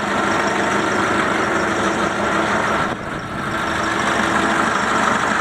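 Forklift engine idling steadily, with a brief dip in level about three seconds in.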